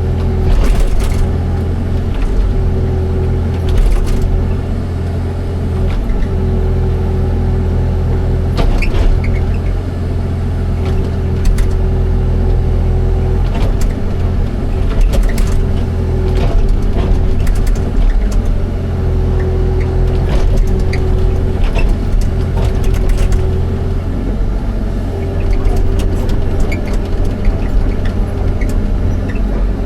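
Excavator's diesel engine running steadily under load, with a steady whine that comes and goes every few seconds and scattered metallic clanks and knocks.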